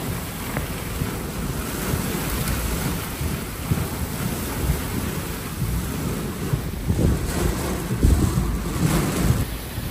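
Hurricane-force wind blowing hard in gusts, buffeting the microphone with a low, noisy rush; the gusts get louder in the last few seconds.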